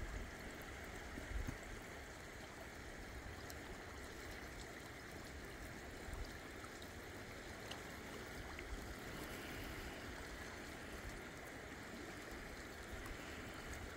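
Faint, steady rush of a shallow river running over stones, with a few brief low rumbles near the start.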